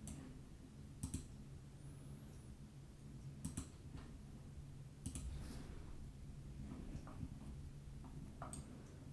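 Scattered clicks of a computer mouse and keyboard, about six of them at irregular intervals, over a low steady hum.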